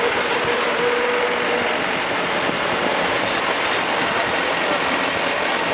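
Land Rover Defender 110 on the move: steady road and drivetrain noise with a clattering rattle, and a thin whine that sounds briefly about a second in. The whine and rattle are the kind of noise the owner finds annoying.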